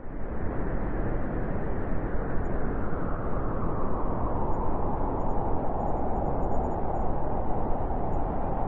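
Blizzard wind: a steady rush of storm wind with a howling band that strengthens partway through. It comes in abruptly after a moment of silence.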